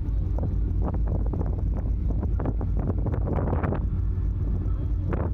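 Wind buffeting the microphone over the steady low engine rumble of a sightseeing icebreaker, with irregular crackles throughout.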